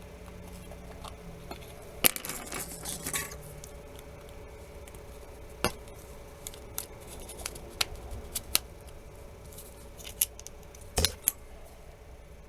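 A pry tool clicking and scraping against the glass of an LG K373 phone's screen as the glued-down old screen is pried loose from its frame: a scraping rattle about two seconds in, then scattered sharp clicks.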